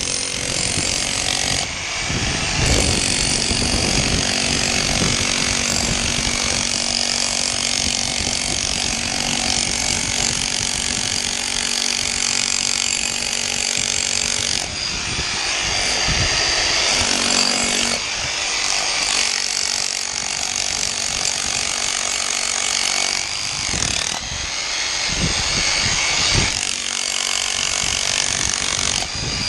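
Corded rotary hammer with a chisel bit breaking into a concrete floor. It runs almost continuously, with a few brief let-ups about halfway through and near the end.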